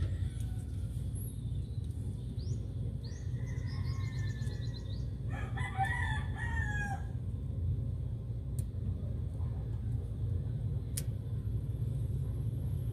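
A rooster crows once, about five seconds in, preceded by a few short high bird chirps, over a steady low hum.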